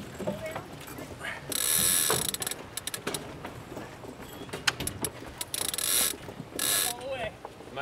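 Sailboat winch ratcheting as a line is ground in: three spells of rapid pawl clicking, the longest about one and a half seconds in, two shorter ones near the end, with a few single clicks between.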